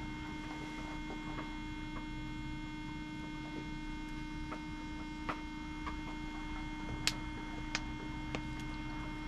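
A steady electrical-sounding hum with a few faint, short clicks in the second half.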